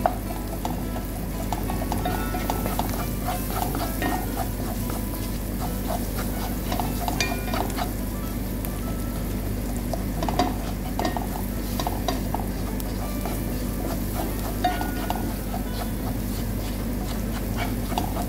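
A wooden spatula stirring and scraping diced onions in a hot coated frying pan, with a light sizzle of the onions frying and scattered clicks of the spatula against the pan.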